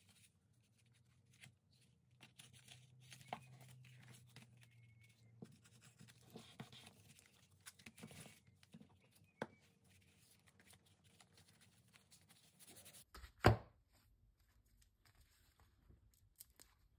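Faint rustling and small clicks of hands handling and pressing down glued collage paper, with one sharp knock about three-quarters of the way through.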